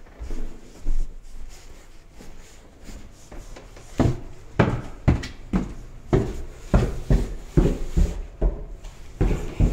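Footsteps going down bare wooden stairs, about two steps a second, starting about four seconds in. There are a couple of softer thumps near the start.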